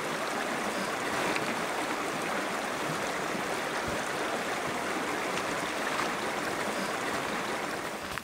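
Shallow creek running over stones, a steady, even rushing trickle of water.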